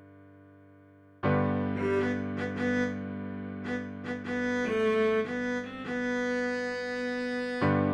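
Background music: a held chord fading out, then a louder entry about a second in with sustained bowed-string notes over a low chord.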